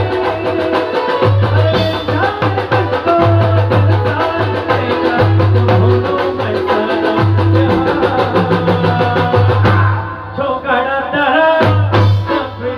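Live band music: drums and keyboard playing with a steady beat, and a man's singing voice comes in about ten seconds in.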